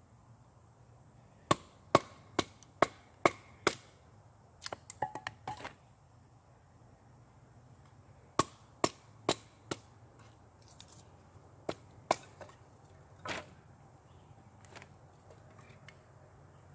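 Hatchet striking a stick of firewood held upright on a chopping block, splitting kindling: runs of sharp knocks about two a second, with a quicker cluster of lighter cracks between the runs.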